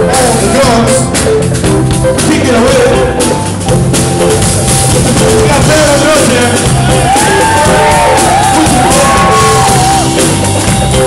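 Live blues band playing: electric guitars over a stepping low bass line and a drum kit, with a lead line of bending notes that is strongest from about seven seconds in.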